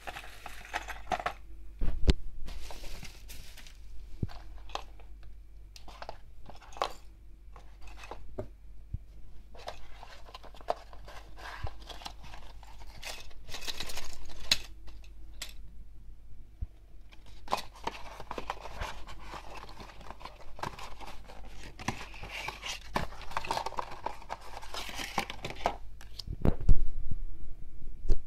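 Paper and plastic packaging rustling, crinkling and tearing as a padded mailer and a small cardboard box are opened by hand, with scattered taps and clicks. A sharp knock near the end is the loudest sound.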